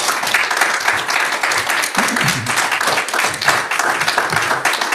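A small audience of a few dozen people applauding, many hands clapping steadily.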